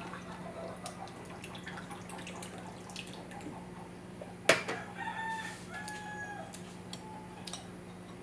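A rooster crowing in the background: one held call starting about five seconds in and lasting about a second and a half. Just before it comes one sharp clink, the loudest sound, among light clicks of eating utensils, over a low steady hum.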